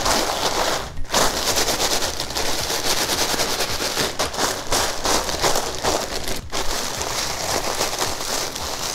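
Ruffles potato chips being crushed into crumbs by hand inside a zip-top plastic bag: dense, continuous crackling and crunching of chips with crinkling plastic, broken by two brief pauses about a second in and near six and a half seconds in.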